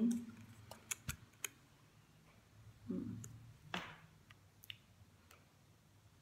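Scattered light clicks and taps of a small round clear plastic candy jar with a ribbon-trimmed lid being picked up and handled.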